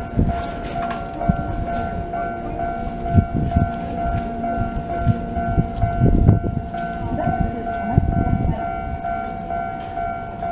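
Japanese level-crossing alarm ringing steadily as a Keisei Kanamachi Line train passes, its wheels clunking over rail joints several times, some in quick pairs.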